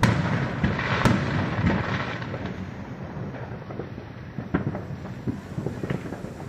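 Distant fireworks: a loud bang right at the start and another about a second in, each trailing off in a long rumbling echo, then many smaller scattered pops and crackles of firecrackers.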